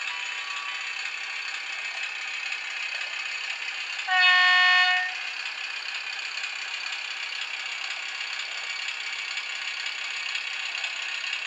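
Loksound V3.5 sound decoder in a model Mack railbus playing its engine-running sound through the model's small speaker, thin with no low end. About four seconds in it sounds one steady horn blast lasting about a second.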